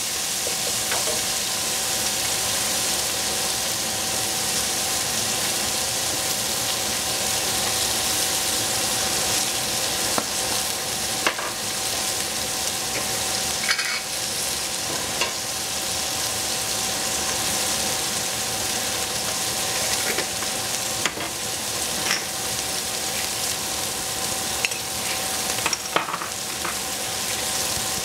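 Sliced red onions sizzling steadily as they fry in a stainless steel pot, with a few light knocks now and then as a wooden spatula stirs them.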